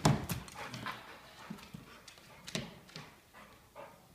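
A large dog playing rough, making dog noises amid scuffling and clattering of paws and feet on the floor. A sharp knock right at the start is the loudest sound, followed by scattered short scrapes and thuds.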